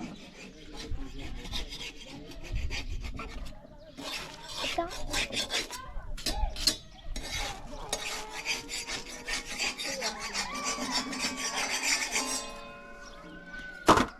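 Repeated rasping, scraping and rubbing strokes. A single sharp knock comes near the end.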